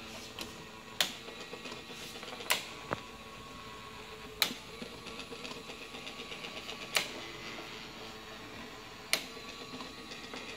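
Cimbali M2 Barsystem brew chamber gear motor running on the bench, turning the lead screw with a steady mechanical whir. It is broken by five sharp clicks, about two seconds apart.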